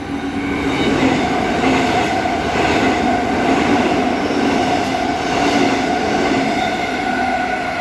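Two coupled electric multiple-unit trains passing through the station at speed without stopping: a steady loud rush of wheels on rail with a few steady humming tones.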